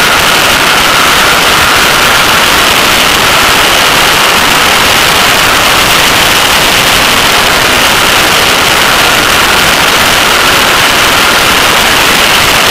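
Loud, steady wind rush over a car-mounted camera's microphone on the rear fender of a Porsche 911 at track speed, with the car's flat-six engine running faintly beneath it.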